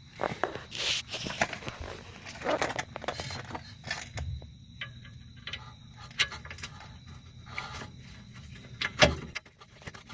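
Irregular metal clinks and rattles of a brake caliper and its two 16mm bolts being fitted and tightened with hand tools, with a louder knock about nine seconds in.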